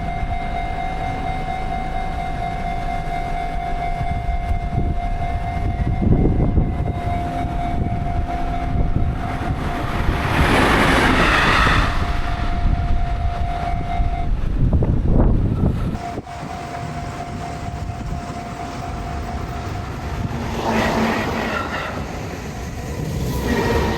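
Japanese level-crossing warning bell ringing steadily while a train rumbles past, loudest about ten seconds in. The bell stops a little after the middle, then starts again, and another noisy pass comes near the end.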